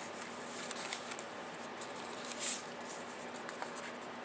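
Paper and card rustling softly as the pages and flip-up flaps of a handmade journal are handled, with a few light ticks and one louder rustle about two and a half seconds in.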